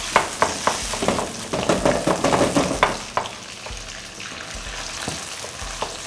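Pieces of barramundi (white sea bass) sizzling as they deep-fry in oil in a wok, being fried until golden and crisp. Over it, a knife chops shallots on a cutting board in quick, uneven strokes that thin out in the second half.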